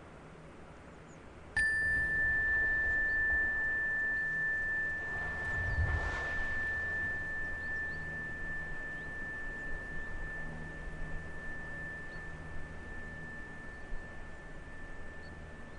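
A single high, steady ringing tone that starts suddenly about a second and a half in and holds, fading slowly, over faint background hiss. A soft rush of noise swells and dies about six seconds in.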